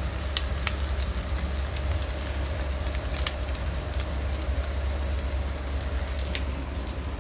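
Chip-coated chicken leg pieces deep-frying in hot oil, sizzling steadily with scattered crackling pops over a low, steady hum.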